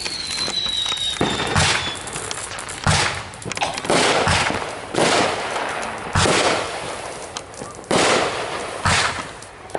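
Aerial fireworks bursting in quick succession: seven sharp booms at uneven intervals of about one to one and a half seconds, each trailing off over about a second. At the start a thin whistle, falling slightly in pitch, fades out about two seconds in.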